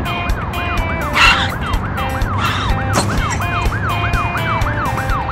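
Emergency vehicle siren in a fast up-and-down yelp, just under three sweeps a second, over a low engine hum.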